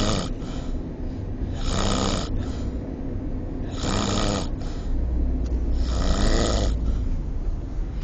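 A sleeping person snoring loudly, one rasping snore about every two seconds.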